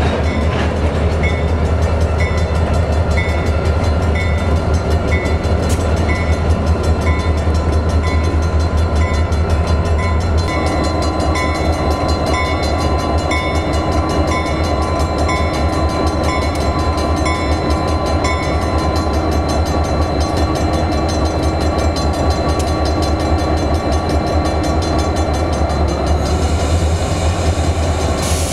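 Two EMD GP40-2 diesel locomotives, turbocharged 16-cylinder 645 engines, rumbling steadily as they move slowly through a grade crossing. The crossing bell rings about three times every two seconds until about two-thirds of the way through, and a hiss starts near the end.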